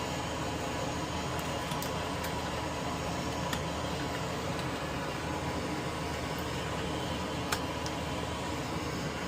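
Steady whir of a fan, with a few light ticks and one sharper tick about seven and a half seconds in.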